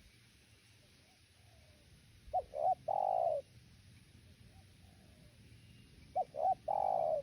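Spotted dove (tekukur) cooing: two phrases about four seconds apart, each two short coos followed by one longer, fuller coo.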